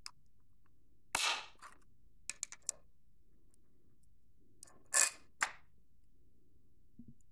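Sharp clicks and snaps from small metal parts and hand tools being handled on a work table: one loud snap about a second in, three quick clicks, then two more loud snaps near the middle.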